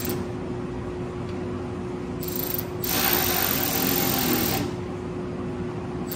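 Cordless driver running plastite screws into a plastic lawn tractor fuel tank: a short burst about two seconds in, then a longer run of a second and a half or so.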